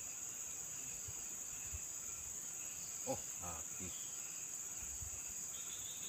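Steady high-pitched chorus of insects, such as crickets, in the waterside vegetation, with a brief pitched sound about three seconds in.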